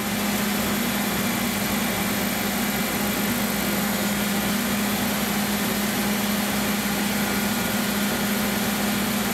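Belt grinder running as an S30V steel chef's knife blade is ground on the abrasive belt to smooth its bevel: a steady hum under a broad grinding hiss.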